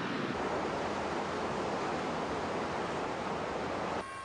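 Steady rushing noise of surf and wind, cutting off abruptly about four seconds in and giving way to a quieter hum with a steady tone.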